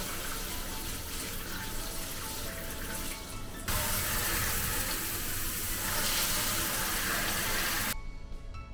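Water running from a tap, over background music. The flow gets louder about a third of the way in and cuts off suddenly near the end.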